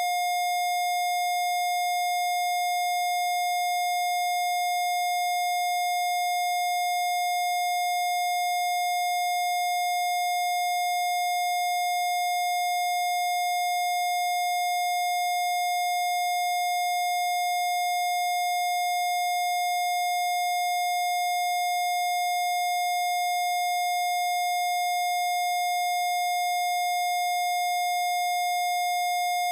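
Steady electronic test tone from a frequency-therapy track, held at one unchanging mid-high pitch with faint overtones, with no music or voice.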